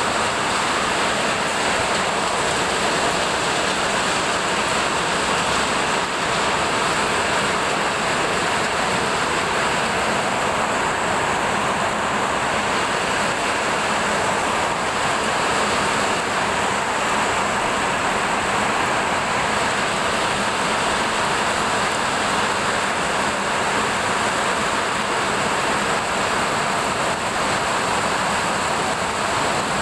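Heavy rain and hail falling steadily in a hailstorm downpour, a dense unbroken hiss.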